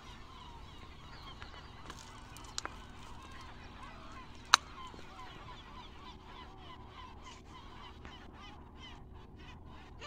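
Many birds calling, short overlapping calls that rise and fall in pitch, over a faint steady background. A single sharp click stands out about halfway through.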